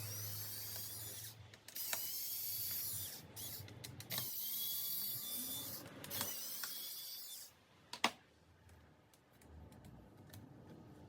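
Small hand tools working on a laptop's case and parts: three stretches of scratchy, ratchet-like mechanical noise, then a single sharp click about eight seconds in, followed by faint ticks.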